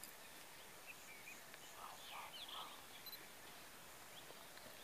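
Near-silent forest ambience with a few faint, short bird chirps around the middle.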